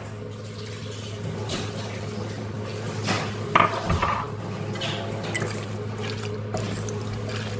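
Lemon, pepper and salt dressing poured from a small bowl onto wet chopped vegetables in a glass bowl, then a fork stirring the salad with a few sharp clinks against the glass, strongest about three to four seconds in. A steady low hum runs underneath.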